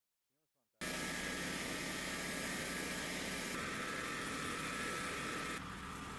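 Pressure washer running and spraying: a loud, steady hiss of high-pressure water over motor noise, starting abruptly about a second in and shifting in tone twice.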